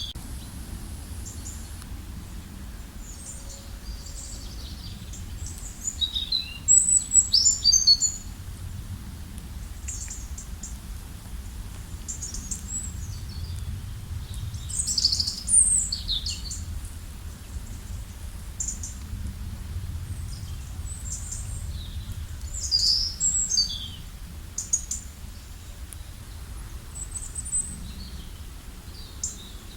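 Wild songbirds chirping and trilling in short, overlapping high phrases, with the busiest bursts about a quarter, half and three-quarters of the way through, over a steady low rumble.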